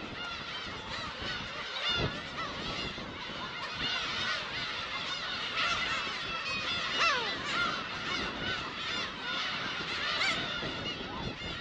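Black-tailed gull colony calling: many overlapping mewing calls with no let-up, one long falling call standing out about seven seconds in.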